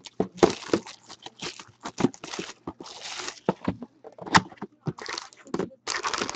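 Cardboard trading-card hobby box being handled and opened by hand: a run of knocks, scrapes and rustles as it is turned, set down and its lid lifted to expose the packs.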